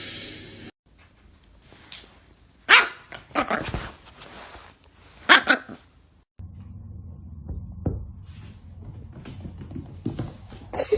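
Dog barking: a few loud barks about three seconds in and another pair a little past five seconds.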